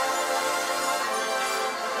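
Drum and bugle corps brass line of G bugles playing held chords.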